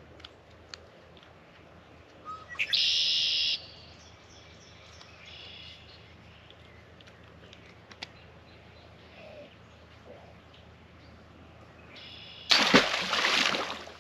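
A short high chirping call, most likely a bird, lasting about a second around three seconds in. Near the end comes the loudest sound: a rough splashing burst with a thump at the water's edge, about a second and a half long.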